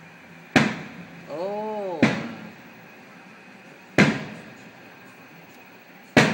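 Aerial firework shells bursting: four sharp booms about one and a half to two seconds apart, each fading away over a moment.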